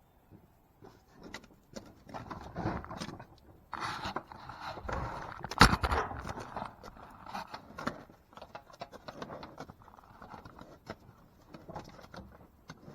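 Cattle being worked in a pen, with irregular scuffing, scraping and knocking against the pen, and one sharp loud bang a little before halfway.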